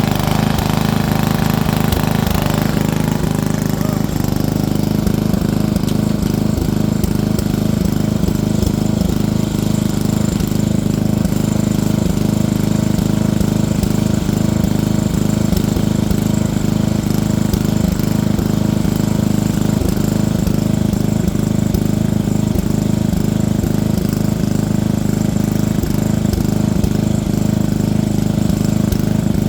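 Off-road vehicle engine running steadily with a rough, rapid low rumble. Its higher-pitched sound drops away about three seconds in.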